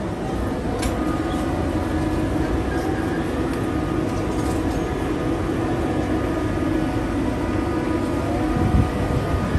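Steady electric hum of trams standing at a platform, several steady tones over a low rumble.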